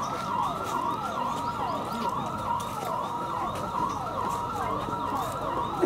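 Emergency vehicle siren in a fast yelp, its pitch rising and falling about three times a second over a steady tone.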